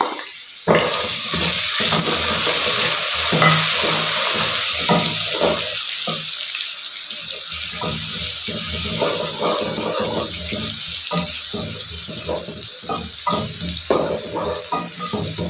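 Ginger-garlic paste and onions sizzling in hot oil in an aluminium pot, stirred and scraped with a wooden spoon. The sizzle jumps up suddenly under a second in, and the stirring comes as irregular strokes under the steady hiss.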